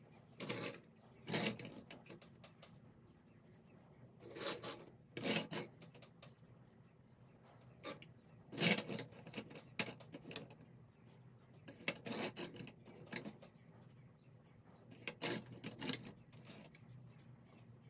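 Plastic toy trucks pushed, turned and slid across a wooden tabletop by hand, their plastic wheels and bodies rubbing and scraping on the wood in short runs separated by pauses.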